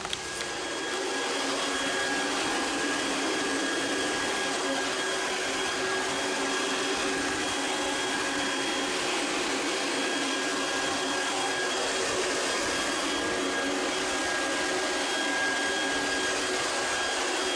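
Pressure washer motor starting up about half a second in and then running steadily at one even pitch.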